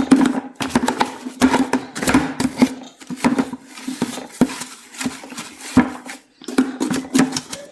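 Irregular plastic knocks, clicks and brushing scrapes from a dusting brush working dirt out of the inside of a Henry vacuum cleaner, over a low steady hum.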